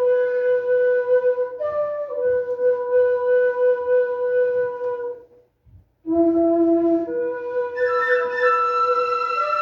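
Flute music in slow, long held notes, with a short break about halfway through. After the break a lower note leads back in, and near the end a second, higher line joins in.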